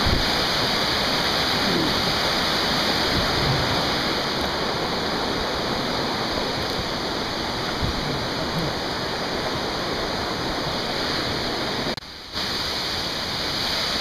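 Waterfall rushing steadily over rocks, a dense even hiss of falling whitewater; it drops away for an instant about twelve seconds in.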